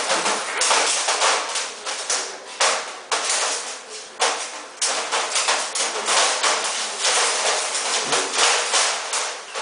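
Two puppies play-fighting in a wire exercise pen: an irregular run of rough, noisy scuffles and snarls, with sharp knocks and rattles from the pen's wire.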